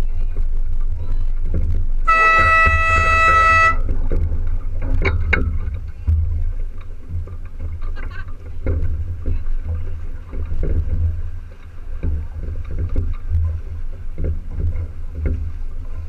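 Air horn sounding one blast of about a second and a half, a sailing race start signal, over steady low wind rumble on the microphone.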